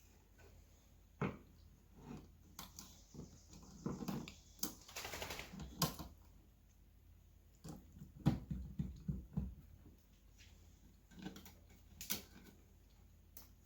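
Faint scattered clicks, taps and knocks of hands fitting wires to a doorbell chime's terminals, with a denser rustling stretch about four to six seconds in and a quick run of knocks around eight to nine seconds.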